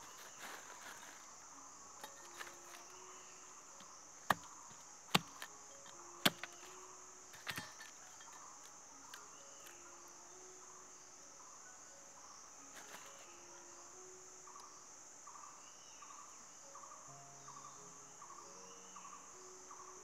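Steady high-pitched drone of forest insects. About four to eight seconds in it is broken by four or five sharp snaps, the loudest sounds here.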